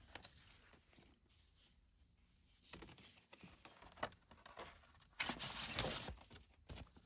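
Handling of a vinyl record's cardboard and paper sleeves: soft rustling and small clicks, with a louder rustle about five seconds in.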